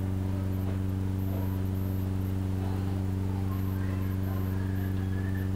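Steady low electrical hum with a buzz, mains hum from the church sound system while the microphone is open and nobody is speaking.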